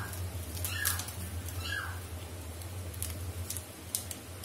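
Pot of noodle soup simmering on a gas stove, with faint scattered pops and ticks over a steady low hum. Two short, high, falling squeaks come in the first two seconds.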